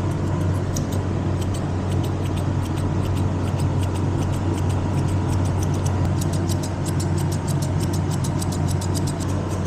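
Grooming scissors snipping through dog hair in quick runs of several cuts a second, over a steady low machine hum.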